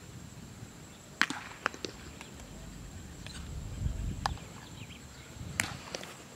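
Scattered sharp clicks and light thuds of a baseball player's footsteps as he runs across outfield grass, over a low rumble of wind.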